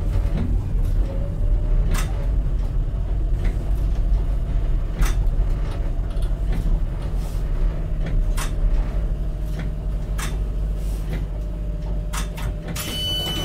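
Tyne and Wear Metrocar (Class 994) running and slowing into a station: a steady low rumble with a faint steady whine, and sharp clicks from the wheels every couple of seconds. Near the end a hiss sets in as the train comes to a stand.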